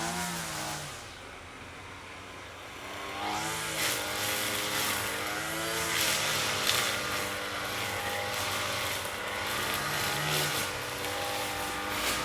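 Lawn mower engine running, its pitch sagging and picking back up several times as the load changes.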